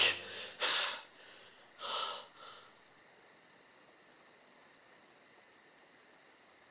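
A man's breathy snorts and gasps in a creature voice, a few short ones in the first three seconds, then near silence.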